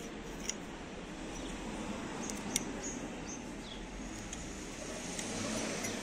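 A few light clicks and taps from a Zippo-style lighter being handled with its lid open, over a faint steady background hiss that swells slightly near the end.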